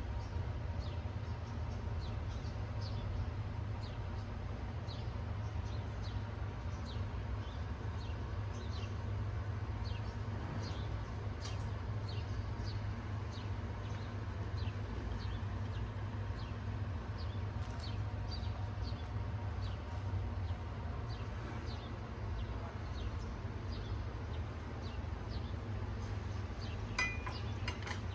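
Small birds chirping in many short, scattered calls over a steady low hum, with a brighter cluster of chirps near the end.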